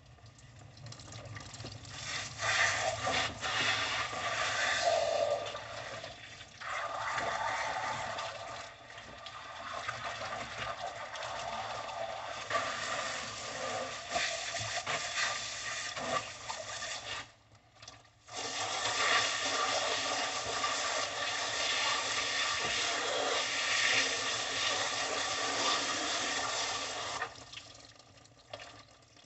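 Garden hose spray nozzle spraying a steady hissing jet of water onto raw pig intestines to rinse them. The spray starts a couple of seconds in, stops for about a second a little past the middle, then runs again and shuts off near the end.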